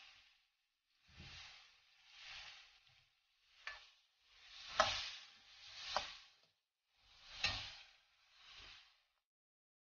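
Steel ladle stirring and tossing sliced vegetables in a stainless steel pan: about seven swishing strokes roughly a second apart, several with a sharp clink of metal on metal, the loudest about five seconds in, stopping about nine seconds in.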